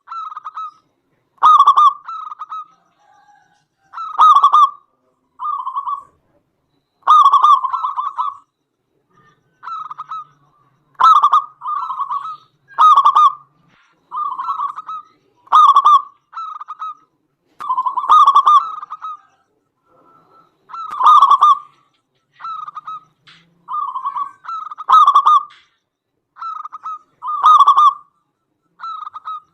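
Zebra dove (perkutut) cooing repeatedly and loudly, in short call phrases that come every second or two.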